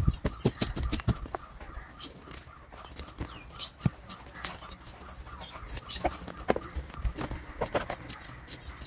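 Irregular crackling, scratching and sharp knocks of hands and a tool prying at a tightly root-bound bonsai's compacted root mass in a plastic pot, with the loudest knock about four seconds in.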